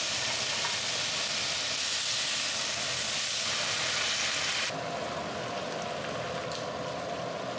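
Bulgogi beef with mushrooms and onions sizzling in a hot frying pan, a steady hiss. About five seconds in it becomes quieter as the pan, now saucy, simmers.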